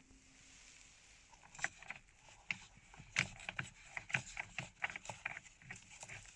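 Irregular light clicks and taps of parts being handled as the steering wheel is refitted onto the column, several a second.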